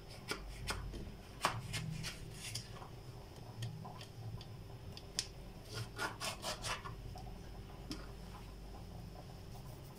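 Kitchen knife cutting a cucumber lengthwise on a plastic cutting board: soft, scattered slicing scrapes and taps, with a quick run of cuts about six seconds in.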